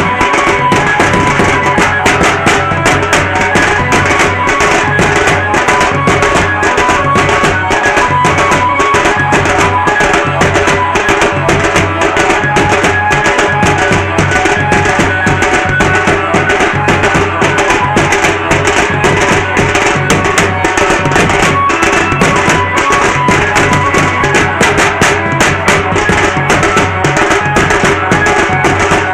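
Loud band music with dense, fast drumming and a steady held melody line, played for traditional Banjara dancing.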